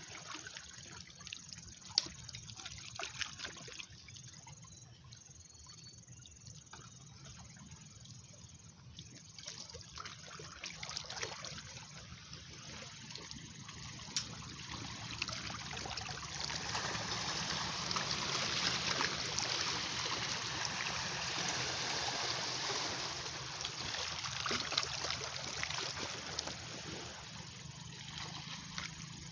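Sea water washing and trickling along the shore, building to a fuller wash in the middle and easing off again. Two sharp clicks cut in, early and about halfway.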